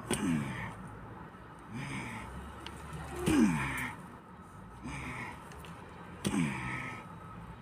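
Pickaxe striking earth three times, about three seconds apart, each blow followed by a falling grunt from the man swinging it, with heavy breaths between the strokes.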